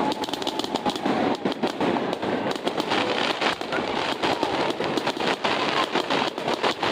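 Fireworks crackling in a dense, rapid, unbroken string of sharp pops.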